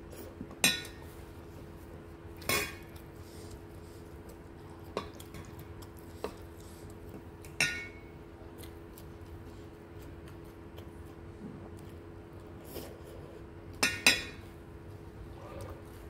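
Wooden spoon and fork knocking and scraping against a metal bowl of noodle soup: about seven sharp clinks at uneven intervals, two in quick succession near the end. A steady faint hum runs underneath.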